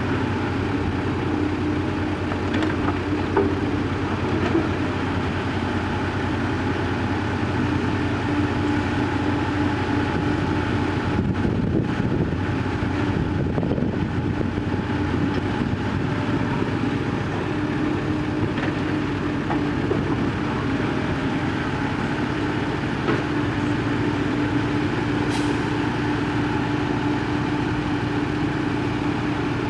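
Heavy diesel engines of a tracked excavator and dump truck running steadily, with a few light knocks.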